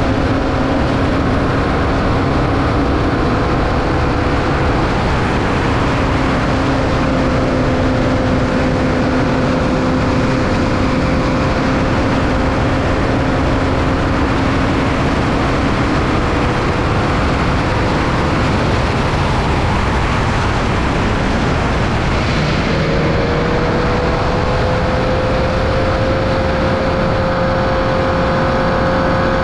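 Formula Vee race car's 1200cc air-cooled Volkswagen flat-four running at high, nearly steady revs under heavy wind noise, heard onboard. About two-thirds of the way through the engine note falls away, then comes back and climbs steadily as the car accelerates again.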